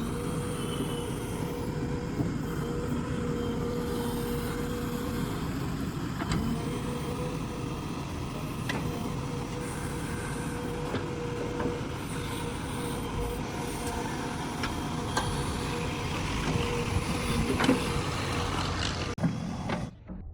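JCB digger's diesel engine running steadily while it digs, with a steady whine and scattered knocks and clanks. The sound cuts off suddenly near the end.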